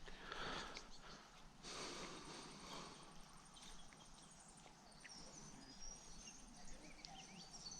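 Faint natural outdoor ambience: a high, evenly pulsing insect trill, with short high bird chirps about five seconds in and a couple of soft rustles early on.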